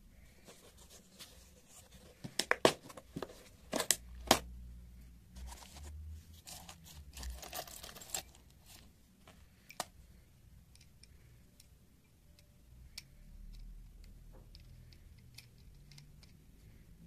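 Hand rummaging through a plastic tub of loose metal screws, bolts and washers: the parts clatter and rattle against each other and the plastic. A few loud, sharp clicks come about two to four seconds in, then a stretch of steady rattling, then only scattered small clicks.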